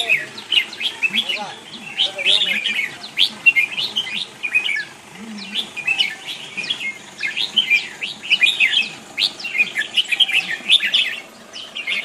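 Several caged red-whiskered bulbuls singing at once: many quick, bright chirping phrases that overlap in a dense, unbroken chorus.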